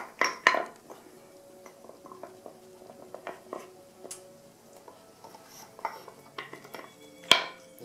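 Dog nosing and pawing at a wooden treat-puzzle board, its wooden pegs and cups knocking and clattering against the board. There are sharp knocks about half a second in and a single loud one near the end.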